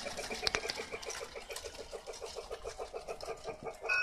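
Battery toy train running on its plastic track, a fast, even pulsing clatter of about eight beats a second that fades a little toward the end.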